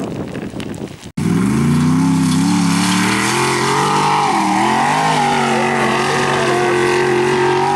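Gusty wind noise on the microphone, then about a second in a Formula Offroad race car's engine cuts in loud and high-revving. Its pitch climbs, dips briefly in the middle, then holds high and steady under load.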